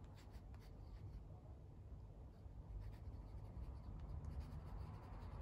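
Fine-tip pen faintly scratching across sketchbook paper as a handwritten signature is written.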